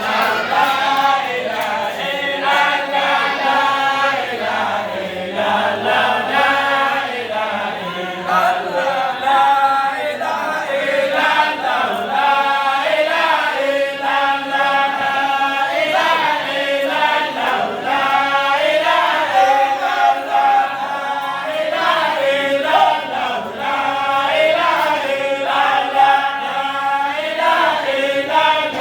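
A group of voices chanting together, a continuous melodic Islamic praise chant with the pitch rising and falling.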